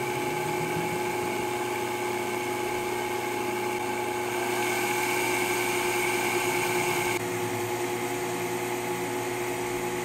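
Vitamix blender motor running fast, grinding dry black sesame seeds into powder: a steady, loud whine. It rises slightly in pitch and loudness about four seconds in as the speed dial is turned up, then drops a little about seven seconds in.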